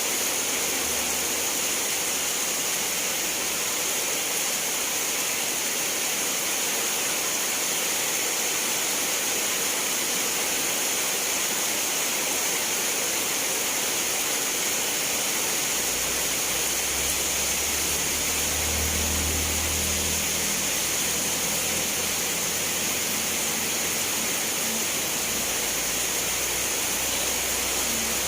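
Steady rain falling, an even hiss throughout. About halfway through, a low rumble joins in underneath.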